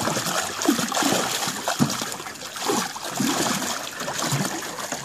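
River water splashing and trickling around a landing net held at the side of a drift boat, with a netted steelhead in it. The sound is an uneven, continuous wash with irregular louder splashes.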